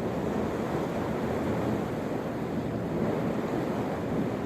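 Steady wind noise buffeting the microphone, a low rushing rumble with no breaks.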